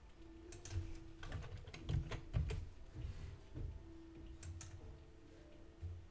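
Computer keyboard keystrokes: a scattered handful of short key clicks, a quick cluster in the first half and two more about four and a half seconds in.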